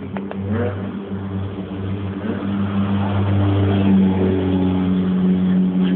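A Ferrari sports car driving slowly past with its engine running at a steady pitch. The engine grows louder and is loudest about four seconds in.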